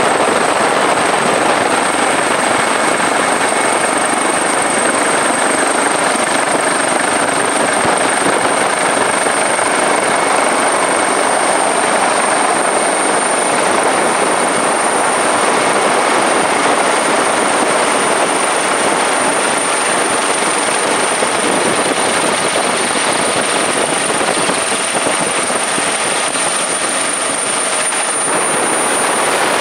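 Steady helicopter noise heard from on board: rotor and engine running without a break, with a thin steady high whine over it.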